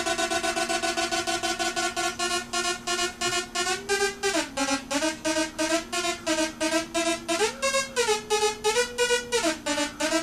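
Modular synthesizer oscillator, a buzzy sawtooth-type tone run through a sawtooth phase shifter module, pulsing rapidly in level as its phase is modulated. Its pitch steps between a few notes: down about four seconds in, back up, then up and down again near the end.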